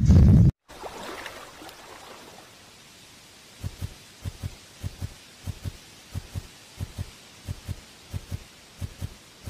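A loud sound cuts off abruptly half a second in. After a faint hiss, soft low thuds begin about three and a half seconds in and repeat at an even pace, around three a second: the footsteps of an animated giraffe walking.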